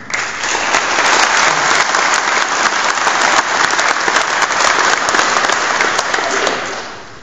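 Audience applauding: dense clapping that starts at once and dies away shortly before the end.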